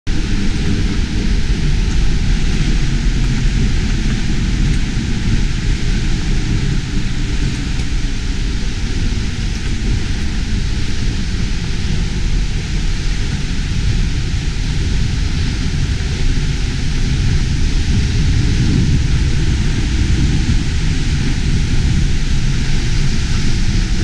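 Seljalandsfoss waterfall: a loud, steady rush of falling water pounding into its plunge pool, heard close up from behind the fall.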